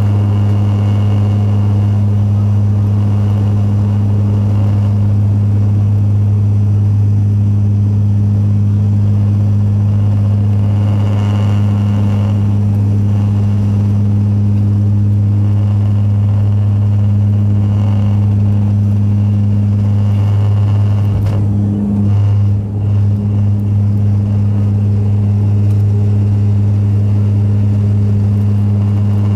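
Bombardier Dash 8-Q400's Pratt & Whitney PW150A turboprop and six-blade propeller at take-off power, heard from the cabin beside the propeller as a loud, steady low drone through the take-off roll and climb-out. About two-thirds of the way through there are a few brief knocks and a momentary wavering in the drone.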